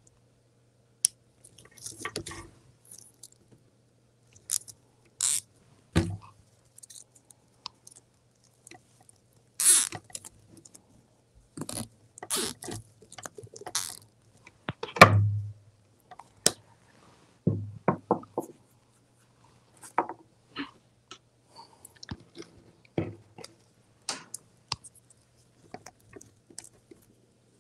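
Hands handling stiff poly burlap deco mesh and a plastic canvas wreath form: irregular crinkling rustles, scrapes and small sharp clicks, coming in scattered bursts with short pauses, the loudest about halfway through.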